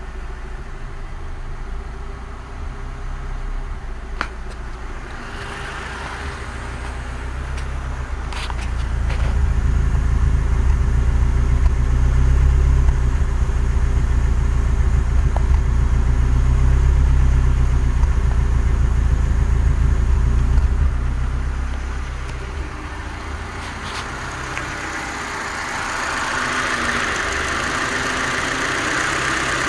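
BMW E30 318i's M10B18 1.8-litre inline-four idling roughly and unevenly, with misfires and a few sharp pings from the exhaust, swelling louder for a stretch in the middle. The owner takes the rough warm idle for a faulty oxygen sensor.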